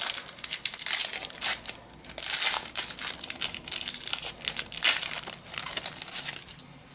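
Plastic wrapper of a trading card booster pack crinkling as it is handled and torn open: a run of sharp crackles that dies away near the end.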